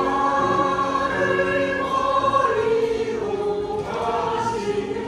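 Choral music: several voices singing long held notes together, the chord shifting a couple of times.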